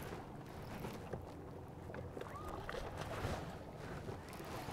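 Faint, steady outdoor ambience on an open boat: low rumble of wind and water moving around the hull, with no distinct events.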